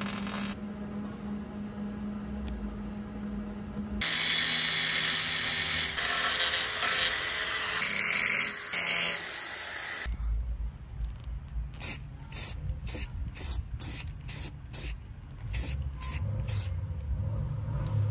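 Power tools working on a car's front-end sheet metal during a radiator support repair. First a low steady hum, then about six seconds of loud, continuous hissing tool noise, then a run of short hissing bursts at roughly two a second, typical of stop-start welding or tool work.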